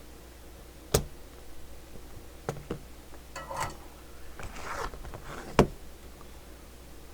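Spring-loaded desoldering pump at work on a circuit board: a sharp snap about a second in and a louder one about five and a half seconds in, with lighter clicks and a short hiss between as the plunger is reset.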